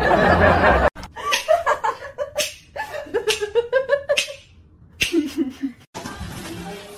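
A person laughing in quick repeated bursts, mixed with voices. A loud noisy sound in the first second cuts off abruptly.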